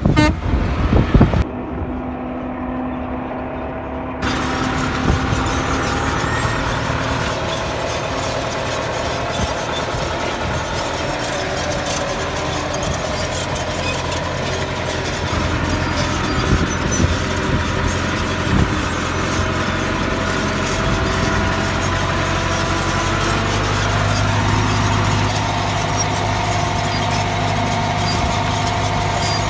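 Tractor engine running steadily as it pulls a grain drill sowing through a field, with a few light knocks from the drill.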